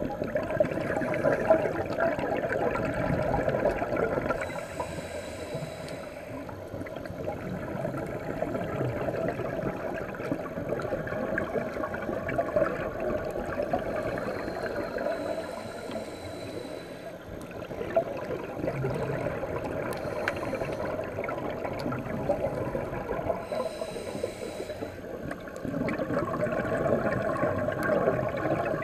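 Scuba diver breathing through a regulator, heard underwater through a camera housing: a high hiss on each inhale, several times, between longer stretches of bubbling exhaust.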